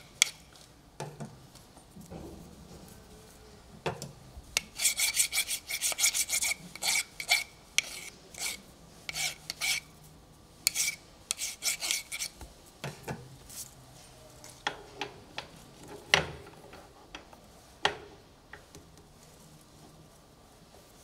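A hand deburring scraper working over a metal part: many short scraping strokes, a quick run of them about five seconds in, then more spaced out, with a few sharper single strokes. It is taking burrs off the part before the part is fitted.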